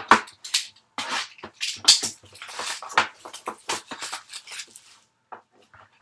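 A cardboard baseball card box from a 2017 Topps Inception case being handled and opened by hand: a quick, irregular run of crinkles, taps and scrapes, loudest at the start and stopping about five seconds in.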